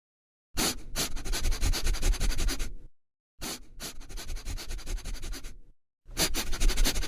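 Rough scratching or rubbing noise in three bursts of about two seconds each, made of rapid dense strokes over a low rumble, each cut off abruptly.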